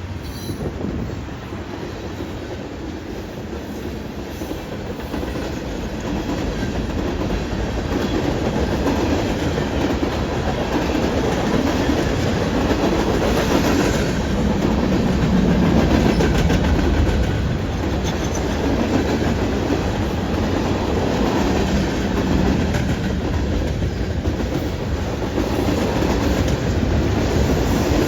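Freight train rolling past, its wheels clattering steadily over the rails, growing louder over the first several seconds and then holding.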